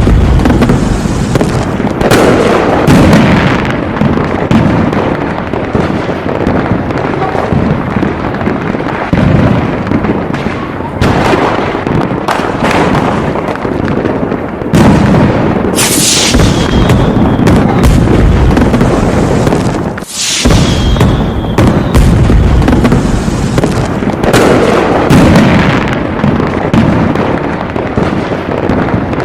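Aerial fireworks going off in a loud, continuous barrage of shell bursts and crackling, with heavier clusters of bangs every few seconds.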